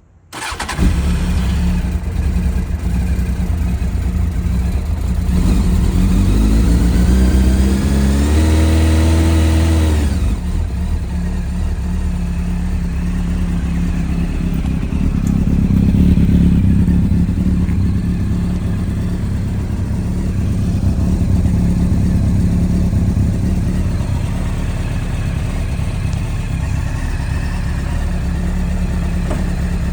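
Honda CBR900RR SC33 inline-four motorcycle engine starting about half a second in and running. It revs up with a climbing pitch for a few seconds, drops back sharply, then settles to a steady idle.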